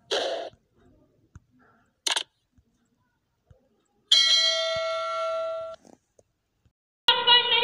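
Subscribe-button animation sound effects: a short swish, a brief click about two seconds later, then a bright bell-like notification chime ringing for about a second and a half. A voice starts near the end.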